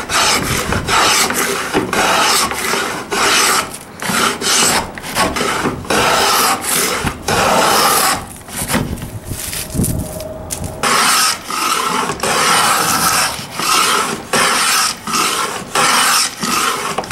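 Plow plane cutting a rebate along the edge of a heavy hardwood board in rapid repeated rasping strokes, each one shaving wood. There is a brief lull about halfway through.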